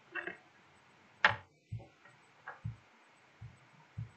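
Computer mouse clicking while working through a menu: one sharp click about a second in, then several soft low taps.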